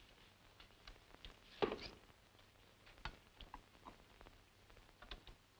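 A few faint clicks and knocks of phonograph records being handled in a wooden record rack. The loudest comes about a second and a half in.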